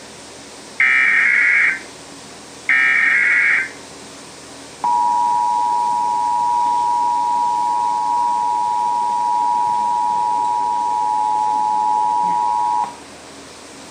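Emergency Alert System header: the last two of three one-second bursts of warbling digital data, then a steady two-tone attention signal (853 and 960 Hz sounded together) held for about eight seconds, the standard alert tone that comes before an EAS test message.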